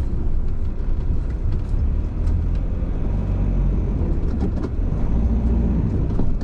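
Citroen van driving, with a steady low rumble from the engine and the road and scattered short clicks and knocks.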